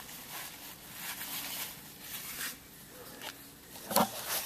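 Irregular rustling and scraping handling noises, then one sharp knock about four seconds in as the camera is moved.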